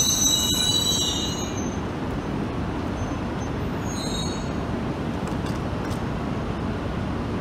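Yamagata Shinkansen Tsubasa train creeping toward the Tohoku Shinkansen train to couple, running with a steady low rumble. A high metallic squeal from the slowly moving train fades out in the first second or so and comes back briefly about four seconds in.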